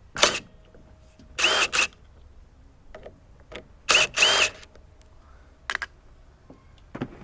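A small cordless power driver whirring in several short bursts, each rising and falling briefly in pitch, as it undoes the fasteners holding a lawnmower's air box.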